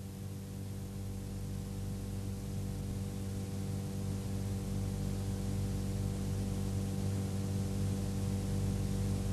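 Steady low electrical mains hum with a faint hiss, slowly growing louder.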